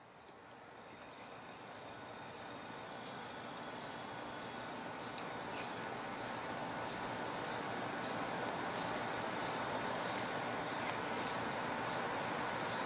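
A steady series of short, high chirps from a small animal, repeating about one and a half times a second over a constant outdoor hum. A single sharp click about five seconds in. The sound fades in over the first few seconds.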